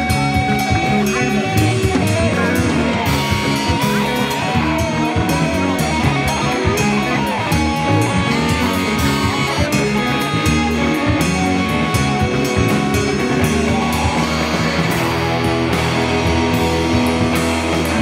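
A live rock band playing a full-band instrumental passage: electric guitars, bass and a drum kit keep going at an even, loud level.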